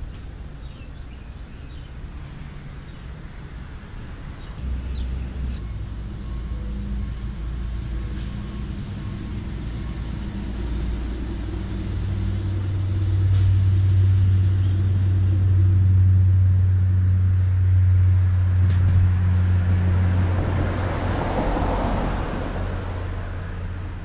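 Low engine rumble of a large motor vehicle that grows louder over several seconds, holds, then fades, with a rushing noise near the end.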